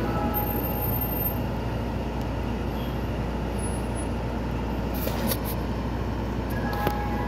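Mister Softee ice cream truck idling with a steady low rumble. Its chime melody is faint at the start and comes back about a second before the end.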